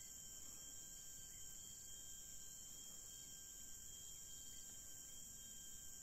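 Faint, steady chorus of forest insects: a constant high-pitched drone with a couple of thin, unbroken tones beneath it.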